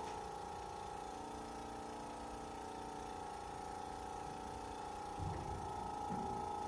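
Portable electric suction machine's pump running with a steady whirring hum, its suction set to 100 to 150 mmHg. A brief rustle and knock about five seconds in as the catheter tubing is handled.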